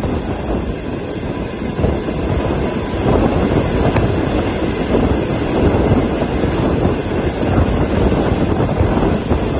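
Passenger train running along the track, heard from aboard: a steady rumble of wheels on rail and rushing air, a little louder from about three seconds in as it passes a row of trackside concrete pillars.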